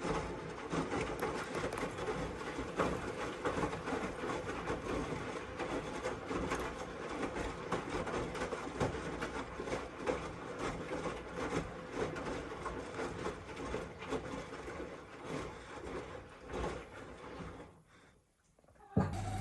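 Miele W1 front-loading washing machine running, a steady mechanical whirr of motor and drum with many small knocks. It winds down to a stop about eighteen seconds in, and a different steady hum starts abruptly right at the end.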